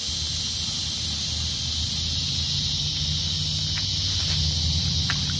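Insects droning steadily in one high-pitched band over a low rumble, with a few short faint chirps near the end.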